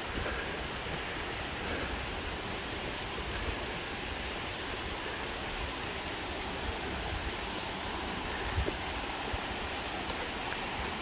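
Steady rushing of a creek flowing over rocks, with a low rumble underneath.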